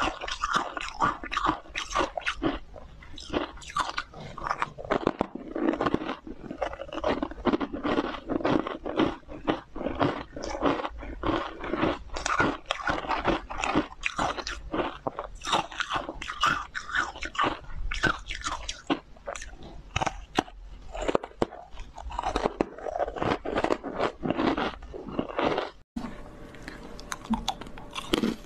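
Close-up biting and chewing of frozen green matcha ice: rapid, crisp crunches one after another as hard ice breaks between the teeth. The sound cuts out briefly near the end, then the crunching goes on.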